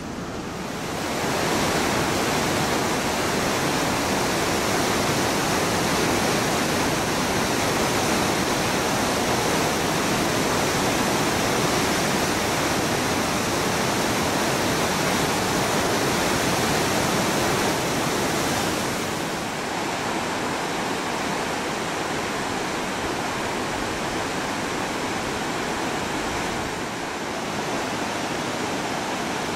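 Fast, silty glacial river rushing over boulders: the Bhagirathi, the upper Ganga, in a steady, loud wash of water noise. It swells up about a second in and eases slightly about 19 seconds in.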